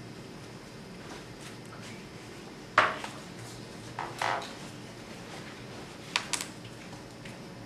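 Spoons and craft supplies handled on tables: a sharp clink about three seconds in, the loudest, a couple of softer knocks around four seconds, and two quick clicks near six seconds, over a faint room hum.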